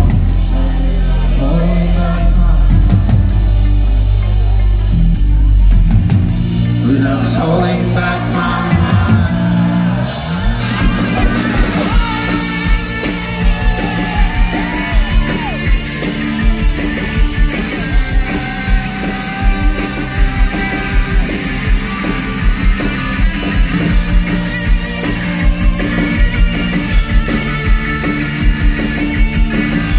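Live rock band playing, heard through a big PA: sustained bass with a voice at first, then about ten seconds in the drum kit comes in with a steady driving beat and the electric guitars and cymbals take it up to full-band volume.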